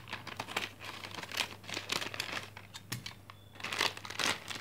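A foil-lined plastic snack packet crinkling as hands handle and open it, in irregular crackles. There is a short lull a little past halfway, then louder crinkling.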